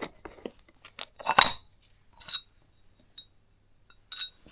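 A few separate metallic clinks and taps of hand tools and small metal parts as the oil pump cover is worked off a two-stroke motorcycle engine. The loudest clink comes about a second and a half in.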